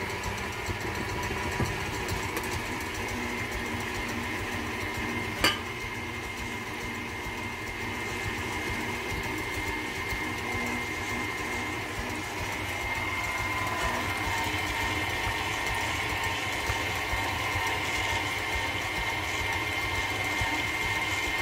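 KitchenAid Artisan stand mixer running steadily, its wire whisk beating a cream mixture in the stainless steel bowl: an even motor whine with a couple of steady tones. A single sharp click about five seconds in.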